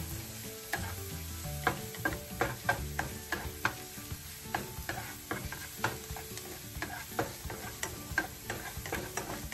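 Minced garlic sizzling in oil in a ceramic-coated frying pan, stirred with a silicone spatula that scrapes and taps the pan with a light tick every fraction of a second.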